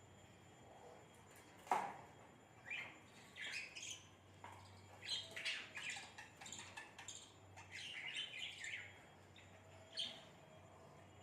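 Pet budgerigars chirping in a run of short, high chirps, with one sharp, loud call about two seconds in and a last chirp near the end.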